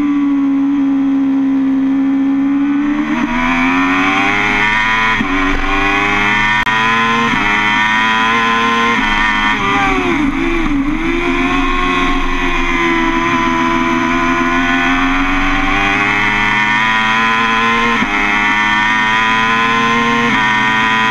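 BMW S 1000 RR's inline-four engine at hard throttle, its pitch climbing with several sudden steps as the rider changes up through the gears. There is a brief dip in pitch about ten seconds in.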